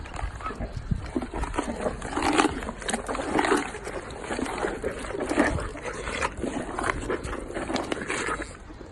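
Hippopotamus at close range with its mouth wide open, making wet, sloshing mouth noises that come and go irregularly.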